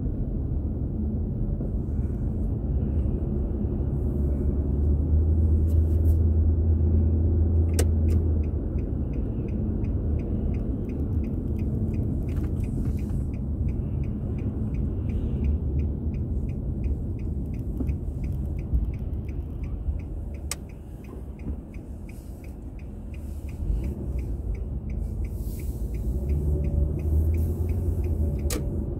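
Steady low rumble of a car's engine and tyres heard from inside the cabin. A sharp click about a quarter of the way in starts a quick, even turn-signal ticking, which stops with another click near the end.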